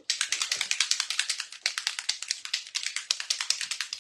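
Makeup primer and setting spray misted from a spray bottle: a hiss made of rapid spurts, about ten a second, for about four seconds.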